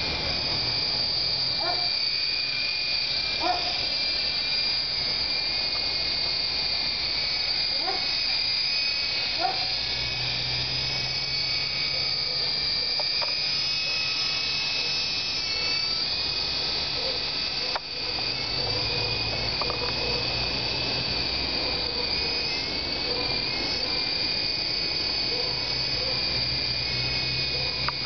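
Syma Apache 3-channel toy RC helicopter in flight, its small battery-powered electric motors and rotors giving a steady high-pitched whine that wavers a little in pitch as it is flown.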